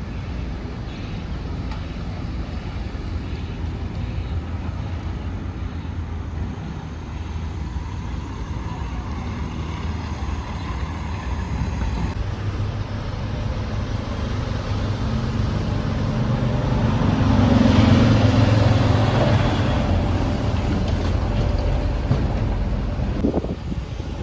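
A vehicle passing close by, its noise building gradually to a peak about three-quarters of the way through, then easing off.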